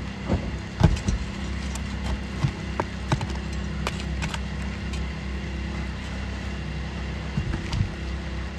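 Steady low engine hum with scattered sharp knocks and clinks, the loudest about a second in and two more near the end.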